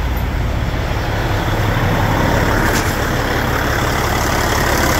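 Cat C15 ACERT inline-six diesel engine running at idle just after starting, its valve covers off and the valve train exposed. It is loud but even, with no ticking, tapping or knocking that the mechanic would call abnormal.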